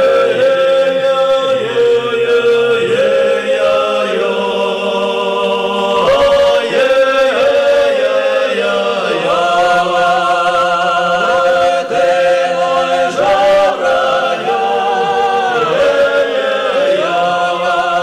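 A choir singing a slow song in Russian, unaccompanied, with long held notes.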